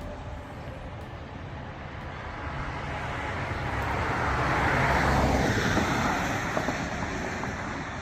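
A road vehicle passing by: its engine and tyre noise builds to its loudest about halfway through, then fades away.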